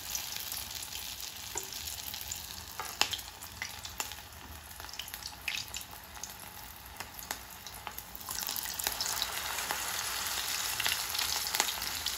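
Batter-coated mushroom and capsicum pieces deep-frying in hot oil in a steel kadhai. A steady sizzle with scattered crackles and pops grows louder about eight seconds in.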